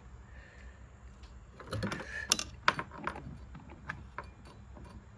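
Small metal parts jingling and clicking as a trolling-motor kill switch's clip and lanyard are handled, with the motor's power cut. A cluster of clicks and jingles comes about two seconds in, then scattered single clicks.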